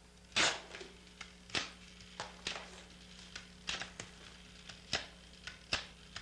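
Telephone set being handled: a run of sharp, irregular clicks and knocks, two or three a second, the loudest near the start, over a low steady hum.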